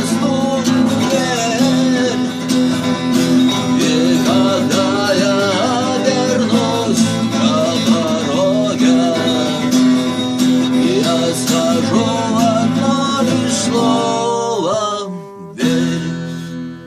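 Acoustic guitar playing an instrumental outro, a wavering melody line over a steady held low note. About fifteen seconds in the playing stops, and one last strummed chord rings out and fades.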